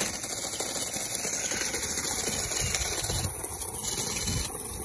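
Small DC gear motor running steadily, driving a homemade toy tractor chassis whose wheels roll over dirt and stones.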